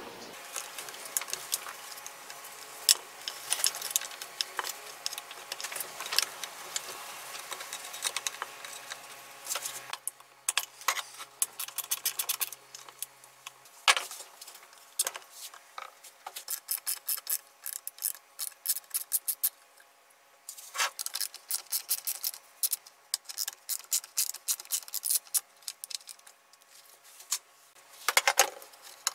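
Clicks, taps and rattles of hands handling the plastic housing, wires and small metal parts of a portable band saw. There are several sharper knocks and runs of rapid clicking.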